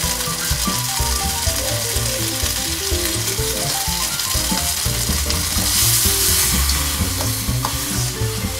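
Soaked bread and flour frying in olive oil in a pan over wood embers, sizzling steadily while a spatula stirs it. The sizzle grows louder in the middle. Background music with short melodic notes plays underneath.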